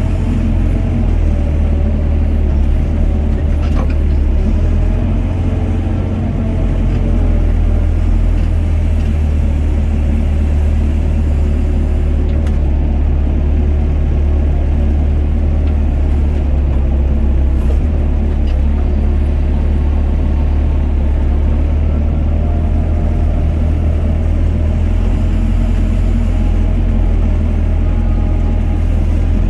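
Doosan DX55 mini excavator's diesel engine running steadily under working load while the boom and bucket dig and dump soil, a deep continuous hum with a whining tone above it that wavers in pitch as the hydraulics work.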